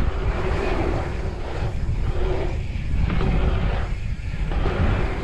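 Wind buffeting the microphone during a bicycle ride, with the tyres rolling on an asphalt pump track, a steady rushing noise with a low rumble that swells and eases slightly.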